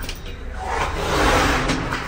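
A knife blade rasping along metal in one long scraping stroke, starting about half a second in, the sound of the knife being sharpened.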